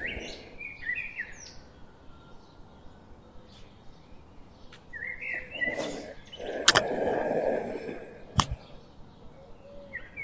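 Birds chirping in short runs of rising and falling notes, in the first second and again about halfway through. A few sharp clicks and a rustle from things being handled come through in the second half, the loudest click a little after the middle.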